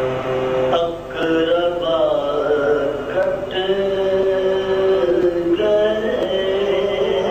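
Male voice chanting a marsiya, a Shia elegy, unaccompanied, in slow melodic lines with long held notes that glide from one pitch to the next.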